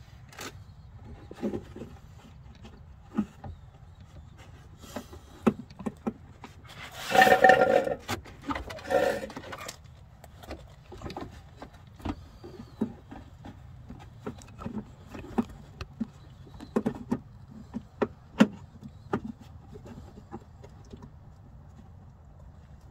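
Hands working the plastic washer fluid bottle and its new pump into place in a Mitsubishi Shogun/Pajero's front wheel arch: scattered clicks and knocks of plastic parts, with a longer, louder burst of noise about seven seconds in and a shorter one just after. The replacement pump is bigger than the old one, which makes it a tight fit. A steady low hum sits underneath.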